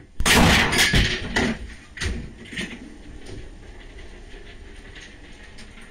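Gunpowder from a shotgun shell flaring up suddenly with a loud hissing rush lasting about a second and a half, followed by a couple of sharp pops.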